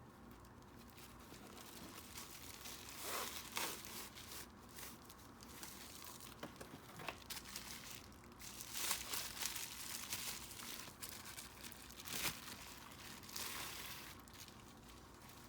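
Product packaging being unwrapped by hand: irregular crinkling and rustling of wrapping, with several louder crackles scattered through.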